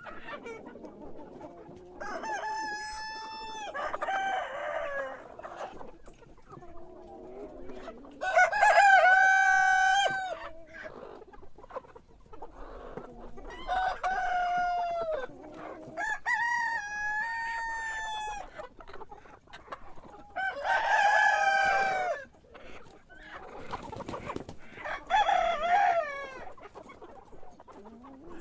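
A rooster crowing about six times, each crow lasting a second or two, with quieter clucking between the crows.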